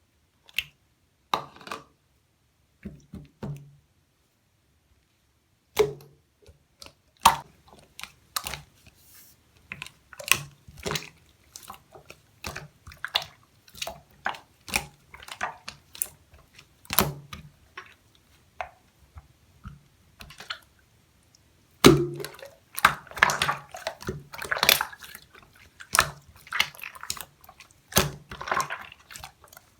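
Marbled slime being squeezed and pressed by hand, giving irregular wet clicks and small air-pocket pops. There are brief pauses about four and twenty seconds in, and the popping grows busier in the last several seconds.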